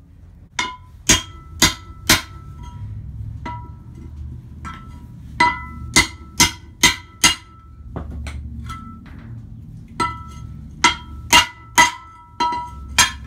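Hammer blows on a Jeep axle-shaft U-joint resting on an old brake drum, pounding the U-joint cap back into the yoke. Sharp metallic strikes that ring on after each hit, in bursts of three to five about two a second with short pauses between bursts.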